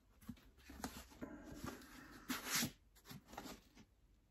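Faint handling noises of a hard-shell waterproof streamer fly box being picked up and held: a few light knocks and clicks with some rustling, loudest about two and a half seconds in.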